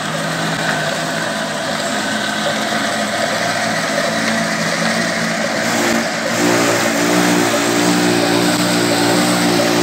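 Old 25 HP diesel engine running steadily, turning a line shaft whose flat belts and pulleys drive several machines. About six seconds in the sound grows a little louder and takes on a new steady hum.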